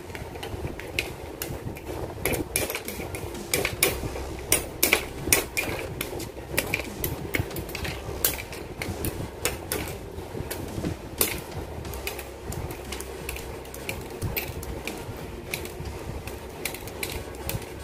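Hobby side cutters snipping plastic model-kit parts off their runners and trimming the gates: a run of sharp, irregular clicks, thickest in the first half. A steady low hum runs underneath.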